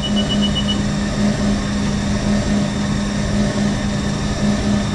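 Haas TM-1 tool room mill running its spindle at about 2,500 rpm during a facing pass. It makes a steady machine hum with a regular pulsing, the cutter only just grazing the top of the stock.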